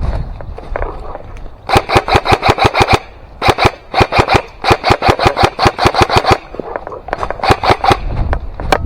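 Airsoft gun firing in rapid strings of shots, about eight a second, in three bursts with short pauses and a last single shot near the end.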